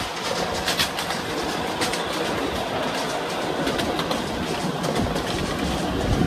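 Ride-on miniature railway train rolling along its narrow-gauge track, with a steady rolling noise from the wheels and scattered clicks as they pass over the rail joints.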